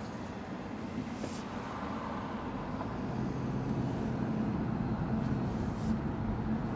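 A BMW car driving slowly through town, heard from inside the cabin: steady tyre and road noise with a low hum, growing a little louder as the car picks up speed after about three seconds.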